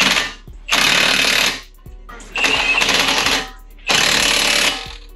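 Impact wrench hammering in four bursts of about a second each, with short pauses between them.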